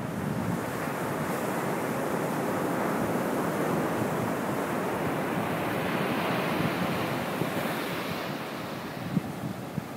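Ocean surf rushing up the beach: a long swell of washing water that builds over several seconds and eases off near the end, with wind buffeting the microphone.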